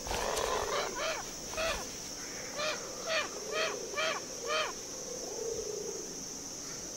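Abbott's booby giving a series of about eight short, harsh honking calls, roughly two a second, after a brief flurry of wingbeats at the nest. A steady high-pitched insect drone runs underneath.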